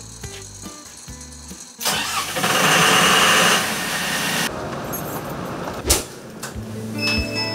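Ferry's main engine being started from the engine-room control console. A loud rushing noise starts suddenly about two seconds in and eases off after about two and a half seconds. A sharp click follows near the end, then background music begins.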